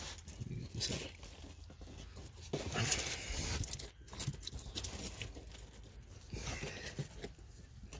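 Irregular rustling and scraping from hands and stiff plastic trim being handled, loudest about three seconds in.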